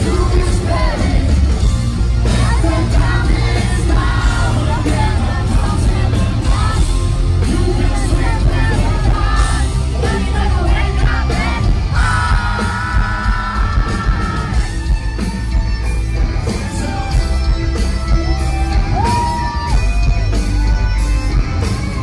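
Live hard rock band playing at full volume, with heavy drums and bass under a male lead vocal, heard from the crowd with audience yells mixed in. About halfway through, the singer holds one long note.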